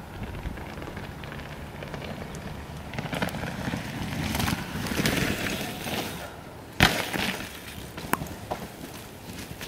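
Downhill mountain bike riding over rough grassy ground: rumble and rattle of the tyres and bike that swells over a few seconds, then one sharp loud knock about seven seconds in and a smaller click a second later.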